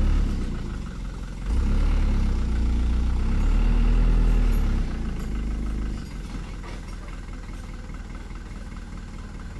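Small cab-over truck's engine running, louder for a few seconds, then dropping to a quieter steady idle about six seconds in.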